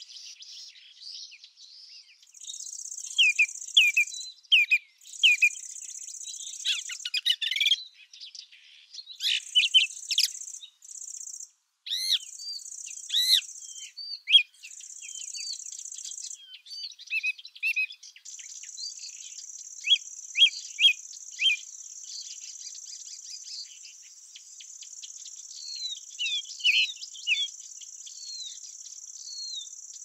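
Songbirds chirping and singing in short, sweeping notes over a high, steady insect trill. The trill comes in stretches of a couple of seconds with brief gaps, then runs on unbroken from a little past halfway.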